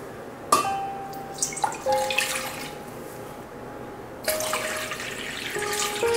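Water poured from a mug into a stainless-steel pot, splashing onto the metal in two pours with a short pause between them.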